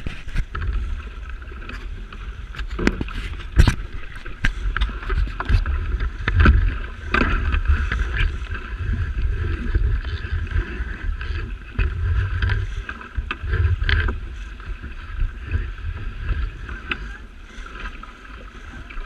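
A small fibreglass trailer-sailer yacht under sail: water rushing along the hull and wind buffeting the deck-mounted microphone in a gusting rumble, with scattered knocks and slaps from waves against the hull.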